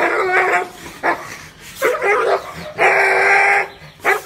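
A dog barking in a series of short barks, with one longer, drawn-out call about three seconds in.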